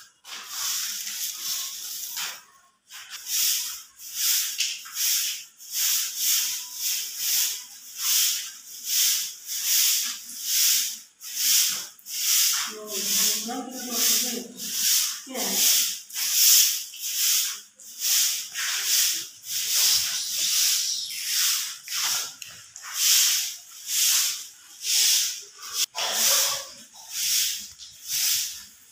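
Long-bristled grass broom sweeping a concrete floor in quick, regular strokes, a hissing swish about three times every two seconds.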